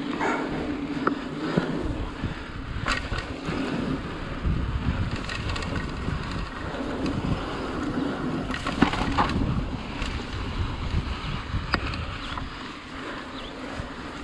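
Mountain bike riding over a dirt trail: steady tyre and ride rumble with the bike rattling over bumps, and a few sharp knocks, the loudest about nine seconds in.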